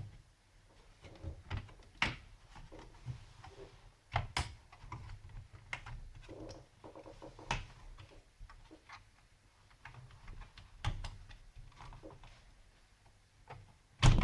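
Irregular clicks, taps and knocks of a laptop's plastic casing and parts being handled and pried during disassembly, with one louder knock near the end.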